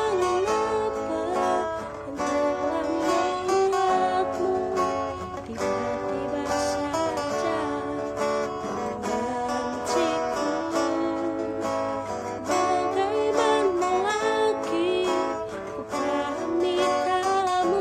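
A woman singing a melody with acoustic guitar accompaniment, the guitar plucked and strummed steadily under the voice.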